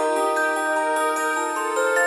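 Music: a melody of held, overlapping high notes.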